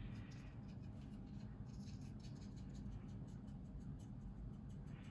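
Soft dry brush rubbed lightly back and forth over a plastic scale model's painted surface, blending in dried oil paint: a faint scratchy brushing over a low steady hum.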